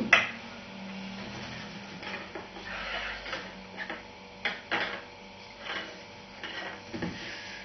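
Light clicks and knocks of a stick-built tensegrity model being handled and set down: the sticks rattle against each other and tap the tabletop several times, with a small cluster of clicks a little past the middle.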